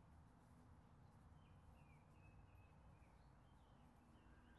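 Near silence: faint outdoor background with a few faint, short bird chirps in the middle.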